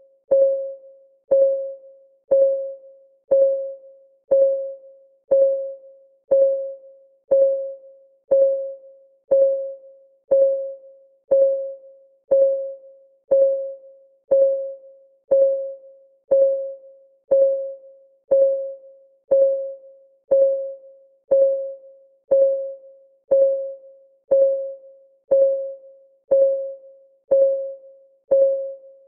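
Countdown timer's clock-ticking sound effect: one short, mid-pitched tick every second, each fading quickly, keeping a perfectly even beat.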